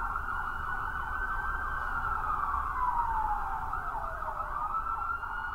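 A siren wailing. Its pitch holds high, sinks slowly over about two seconds, then climbs back up near the end, over a low rumble.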